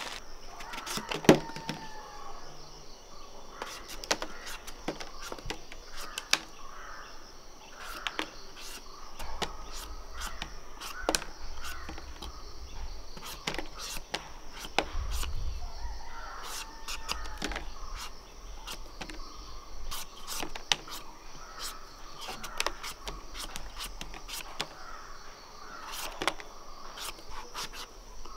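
Knife peeling a raw green papaya, its blade making crisp, irregular strokes through the skin, with crows cawing a couple of times.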